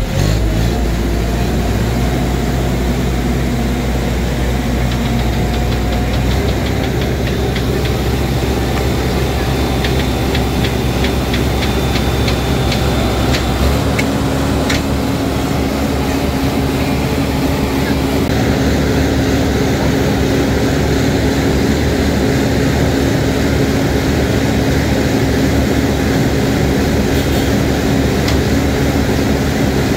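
Heavy diesel engines of crane trucks running steadily at close range, the low engine note shifting about 14 seconds in. A run of quick clicks sounds over the engines from about nine to thirteen seconds in.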